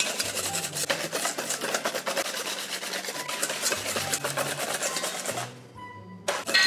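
Wire balloon whisk beating egg yolks and sugar in a stainless steel bowl: fast, steady scraping strokes of metal wires against the bowl, with the mix nearly light and fluffy. The whisking breaks off briefly about five and a half seconds in, then starts again just before the end.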